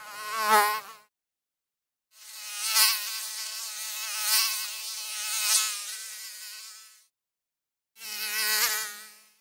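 Mosquito buzzing in flight, its pitch wavering, coming close and moving away three times: a short pass, a longer one of about five seconds that swells and fades several times, and another short pass near the end, with silence between.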